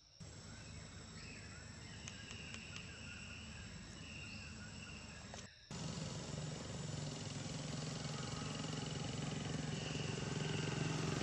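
Outdoor ambience: a steady low hum that gets louder after an abrupt cut about halfway through, with a faint high buzz over it.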